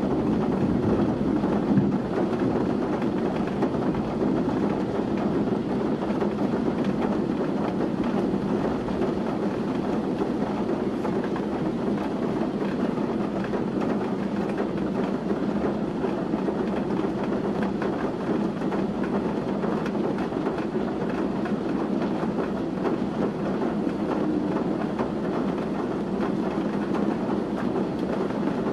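Heavy rain in a strong gusting wind: a steady roar of rain pouring down and trees being blown about.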